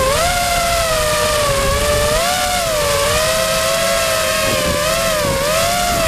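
FPV quadcopter's electric motors and propellers whining, heard from the onboard camera. The pitch keeps rising and falling as the throttle changes in flight.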